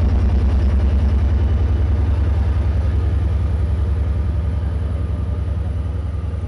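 EMD DM30AC locomotive's diesel engine running with a steady, evenly pulsing low throb, slowly fading toward the end.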